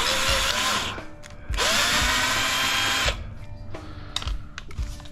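Power drill running in two short bursts, each spinning up with a rising whine, backing screws out of an aluminum shower door frame.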